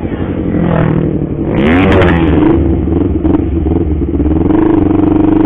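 Honda CBR250RR parallel-twin engine through an R9 aftermarket exhaust, running under way. Its pitch rises about two seconds in, then climbs again near the end and holds a steady high note.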